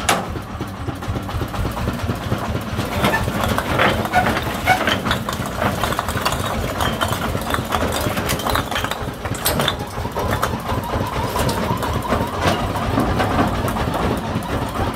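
A công nông farm truck's single-cylinder diesel engine idling steadily, with scattered knocks and clacks of clay bricks being unloaded from its tipped bed.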